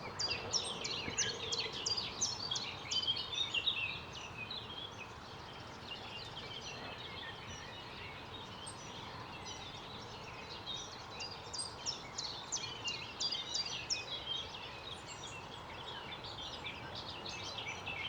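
Small birds chirping in quick, high bursts, busiest in the first few seconds and again from about ten seconds in, over a steady distant city hum.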